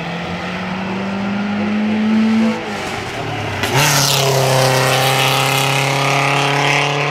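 A small race car's engine at high revs on a hill climb. It approaches with a rising engine note, breaks off briefly about two and a half seconds in, then passes close by at full throttle, loudest about four seconds in, and pulls away up the road with a steady note.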